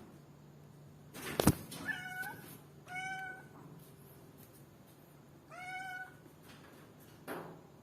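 A domestic cat meowing three times, each meow short and separate. A sharp knock about a second and a half in is the loudest sound.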